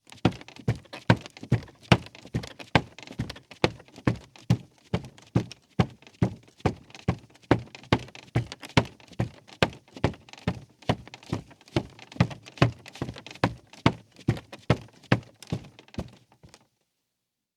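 Bare feet walking at a steady pace on a creaky rug, each step a soft thud. The steps stop about a second before the end.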